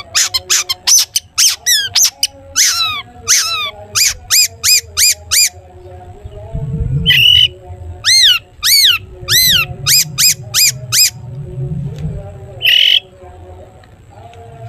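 Long-tailed shrike (cendet) singing its "toet toet" song: rapid runs of sharp, high, repeated notes, several a second, many arching or falling in pitch, broken by a couple of harsh rasping notes.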